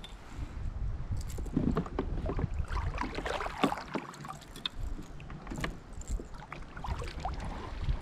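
Irregular clicks, knocks and rustles of handling aboard a plastic sit-on-top fishing kayak.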